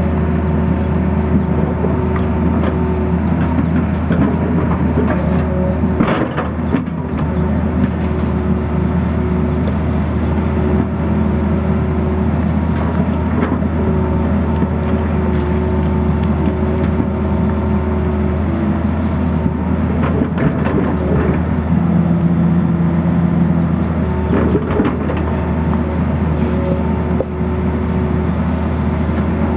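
Tata Hitachi hydraulic excavator's diesel engine running steadily under digging load, with a whining tone that comes and goes as the arm and bucket move. A few knocks and scrapes come from the bucket biting into stony soil, the sharpest about six seconds in.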